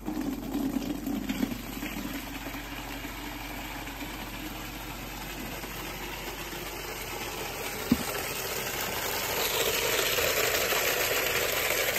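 Water gushing from an open standpipe tap into a plastic bucket, a steady rush that grows louder toward the end as the bucket fills. There is a single sharp click about eight seconds in.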